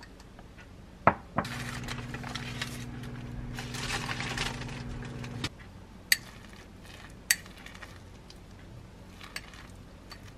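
A microwave oven clicks shut and runs with a steady low hum for about four seconds before cutting off, heating a bowl of whole-oat rice. Then a metal spoon clinks a few times against the ceramic bowl as the cooked oat rice is stirred.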